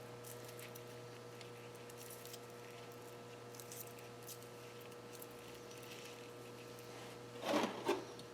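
Faint small clicks and handling noises from a piston ring and feeler gauge being worked while the ring end gap is checked after filing, over a steady hum. A louder, brief scraping rustle comes near the end.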